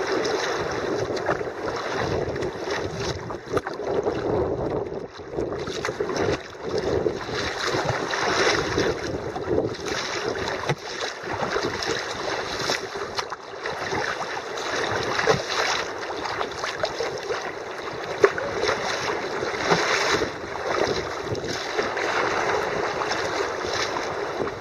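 Sea kayak under paddle: the blades dip and splash into the sea in a steady rhythm of strokes, with water washing along the hull.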